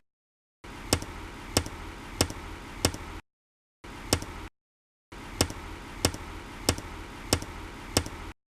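Sharp taps at an even pace, about three every two seconds, over a steady hiss. They come in separate cut-in takes with dead silence between them.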